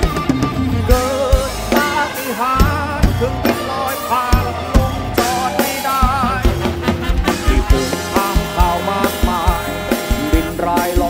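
Live rock band playing an instrumental passage: a drum kit with cymbals and guitars under a lead melody that wavers in pitch.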